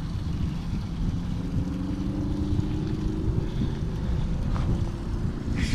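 Wind rumbling on the microphone on a kayak, with a faint steady low whine through the middle and a burst of hiss starting just before the end.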